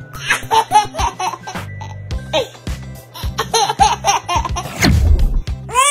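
A baby laughing in repeated short bursts over background music with a steady beat.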